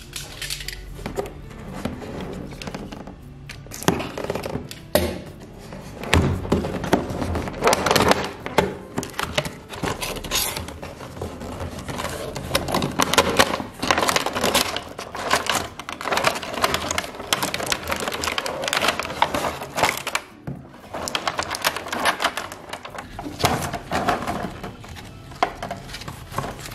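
Unboxing handling noise: a cardboard box and a clear plastic blister tray being pulled open and moved, with irregular crinkles, scrapes and light knocks of plastic and cardboard. The rustle of a paper instruction sheet being handled comes near the end.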